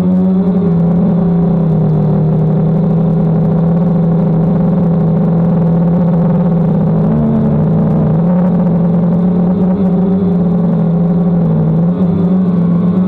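DJI Phantom quadcopter's propellers and motors running steadily in flight: a loud, even buzz whose pitch drifts slightly up and down now and then.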